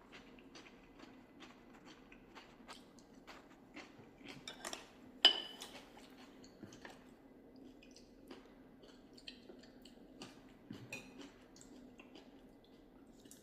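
Tableware being handled: scattered light clicks and taps, with one sharp ringing clink about five seconds in, over a steady low hum.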